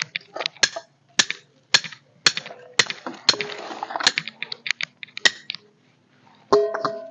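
A machete chopping and shaving sticks of firewood: a run of sharp, uneven cracks and knocks. About six and a half seconds in, a metal frying pan clanks and rings briefly.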